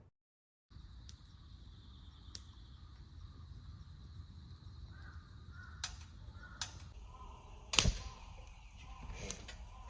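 Campfire crackling faintly: a handful of sharp pops over low outdoor background noise, the loudest about eight seconds in.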